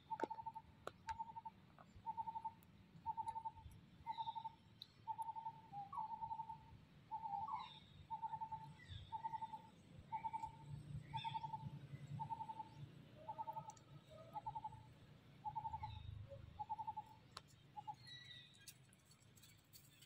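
A bird calling one short hollow note over and over at an even pace, about one and a half a second, stopping a few seconds before the end, with a few higher chirps from other birds around it.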